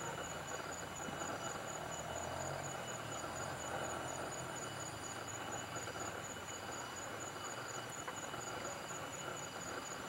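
Steady chorus of insects trilling, with a short high chirp repeating about once a second over a soft hiss of outdoor ambience.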